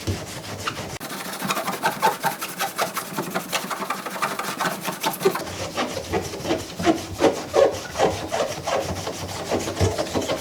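Rapid back-and-forth wet scrubbing on the front of a washing machine, rubbing loose dried-on dirt.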